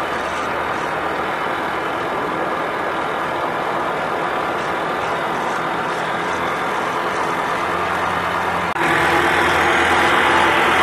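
Honda Activa single-cylinder four-stroke scooter engine driving the oil-barrel boat, running steadily at cruising speed. It jumps abruptly louder about nine seconds in.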